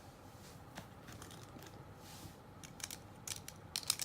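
Light, scattered clicks and taps of plastic and metal Beyblade Burst parts (layer, heavy metal disc and driver) being handled and fitted together by hand, with a quick run of clicks near the end.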